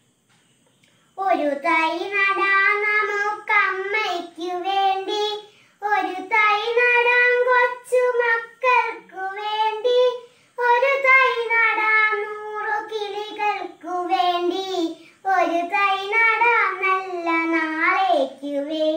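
A young girl singing solo and unaccompanied, starting about a second in, in phrases of long held, wavering notes with short breaths between them.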